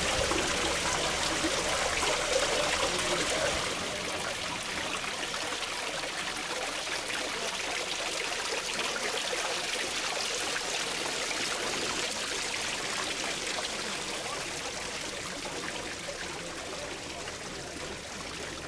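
Water from a stone garden fountain trickling and splashing steadily as thin streams fall from the basin rim and a clay spout into the pool below. It is a little louder for the first few seconds.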